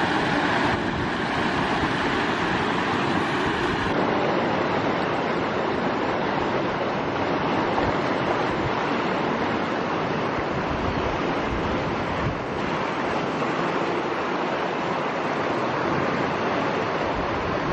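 Steady rush of flowing water: muddy canal water gushing out of a culvert. About four seconds in the sound changes to the continuous rush of the canal's current around a man wading in it.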